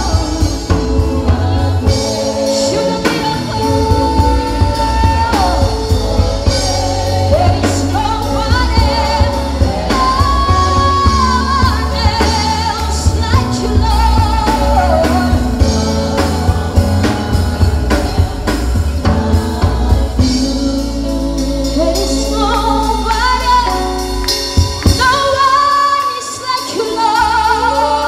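Live gospel worship song: a voice singing a slow melody over a band with drum kit, bass and keyboards.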